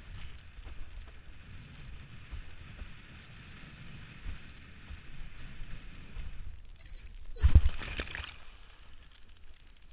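Windsurf board skimming over choppy water, with a steady rush of water and wind against the camera. About seven and a half seconds in, a loud splash as the camera is doused in whitewater.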